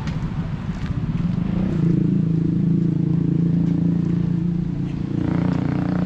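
A motor vehicle's engine running steadily close by, a low even hum that sets in about a second and a half in, with a rush of noise near the end.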